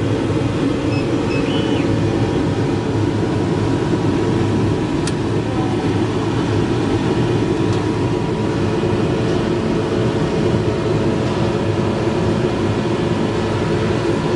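GH960 laser cutting machine running: a steady, unchanging mechanical drone with a faint hum.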